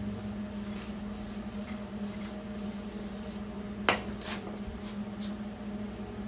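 An aerosol can spraying in several short bursts into a seized locking-hub lock collar to free it, followed by a single sharp metal knock about four seconds in.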